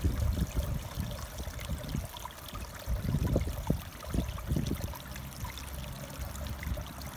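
Shallow ditch stream trickling, over an uneven low rumble.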